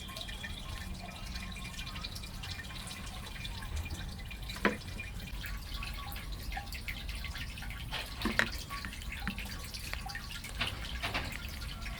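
Scattered small clicks and taps like drips or light handling, with two sharper knocks about five and eight seconds in.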